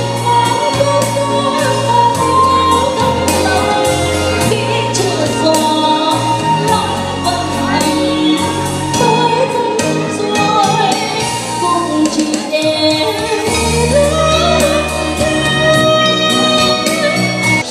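A woman singing into a handheld microphone over an instrumental backing track with a steady bass line and beat.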